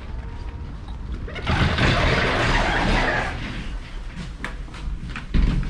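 Automatic sliding glass entrance doors opening, with a rushing noise lasting about a second and a half, followed by a few sharp clicks and a thump near the end.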